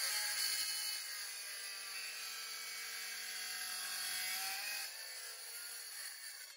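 Cordless circular saw running and cutting a 45-degree bevel across a timber board. It is loudest in the first second, then runs lower, and dies away near the end. The blade depth is set too shallow for the bevel, so the cut does not go all the way through.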